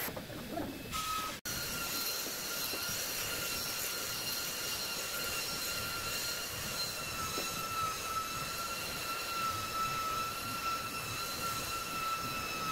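Makita handheld belt sander running steadily over rough-sawn redwood boards, a high, even whine over the hiss of the belt, starting about a second in. It is taking down the uneven thickness of the unplaned boards.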